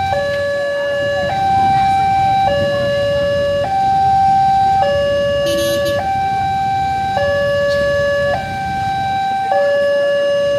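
Railway level-crossing warning alarm sounding while the gates are down for an approaching train: an electronic two-tone signal that alternates between a lower and a higher tone, each held a little over a second. Under it is the low rumble of motorbikes and cars waiting at the crossing.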